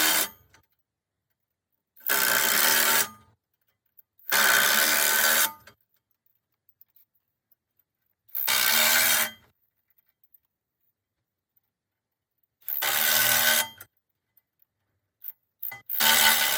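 A power tool run in five short bursts of about a second each, giving a metallic rattle with a ringing tone.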